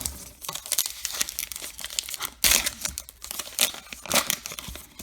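A baseball card pack's wrapper being torn open and crinkled in the hands, a run of irregular crackles and rustles with the loudest tear about halfway through.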